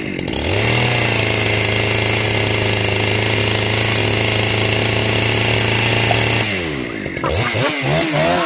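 Two-stroke chainsaw revved up about half a second in and held at a high, steady full throttle for about six seconds, then dropping back and blipped unevenly near the end.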